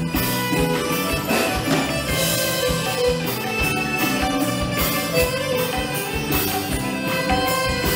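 Live band playing a Malay pop-traditional dance tune, with sustained melody and a steady percussion beat.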